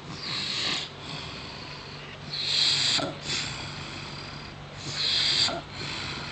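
A man snoring in his sleep: three breathy snores about two and a half seconds apart.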